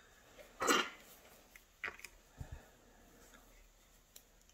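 A few faint, separate clicks and taps of small brass lock pins being picked up and set down in a plastic pin tray; the loudest comes about a second in, with a duller knock about halfway through.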